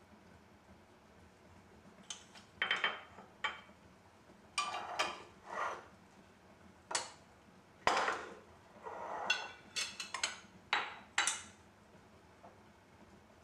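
Kitchenware handled on a stone countertop: a spoon knocking against a glass jam jar and a small porcelain dish being set down, giving a string of short clinks and clatters, some ringing briefly.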